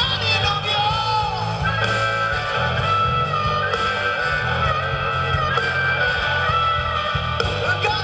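Blues-rock band playing an instrumental section: a drum kit and electric guitar, with a blues harmonica played into the vocal microphone, its notes bending up and down.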